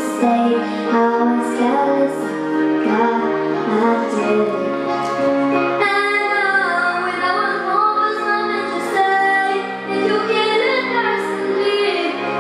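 A young girl singing a song into a microphone over instrumental accompaniment, which gets fuller about six seconds in.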